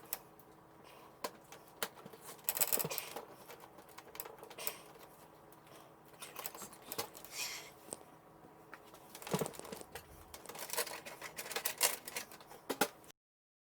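Hands working on a desktop PC build: scattered small clicks, taps and rustles of plastic and metal parts, with a denser run of clicks late on. The sound cuts off abruptly just before the end.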